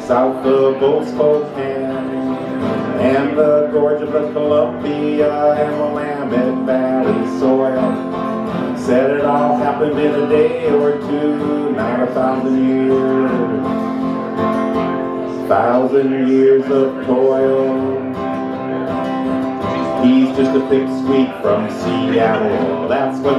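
Two acoustic guitars playing together in a folk song, strummed and picked.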